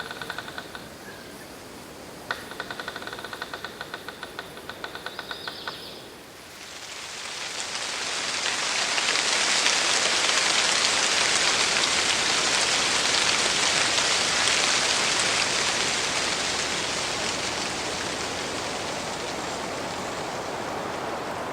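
Forest ambience. A fast rhythmic rattling call of about six or seven pulses a second runs for a few seconds near the start. Then a dense, steady hiss fades in, swells to its loudest a few seconds later and eases off slowly.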